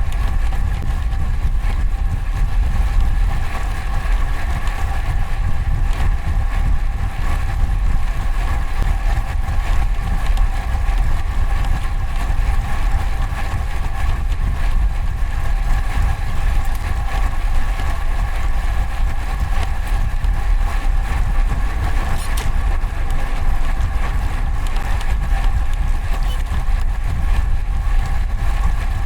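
Wind rumbling on a bike-mounted camera microphone as a road bike is ridden through traffic, with a steady hum of several tones over it.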